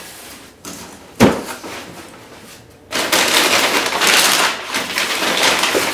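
Brown kraft packing paper crinkling and rustling loudly as it is pulled out of a cardboard box, starting about three seconds in. Before that, a single sharp knock about a second in.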